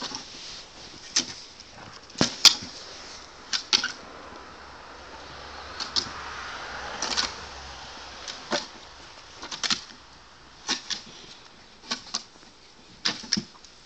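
Footsteps crunching in snow: short, sharp crunches at an uneven walking pace, often in pairs, about one a second, with a soft hiss swelling in the middle.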